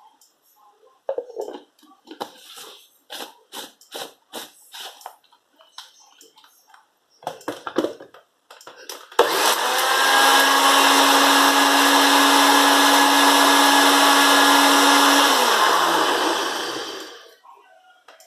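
NutriBullet blender motor milling whole peppercorns: it starts suddenly, runs steadily for about six seconds, then winds down with a falling pitch. Before that comes a series of clicks and knocks.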